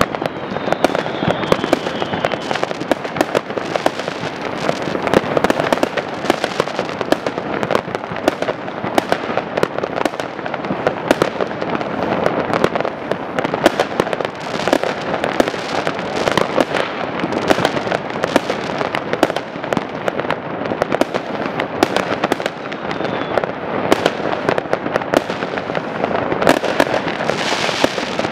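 Many fireworks going off together: a dense, unbroken barrage of bangs and crackling, with a faint falling whistle about a second in.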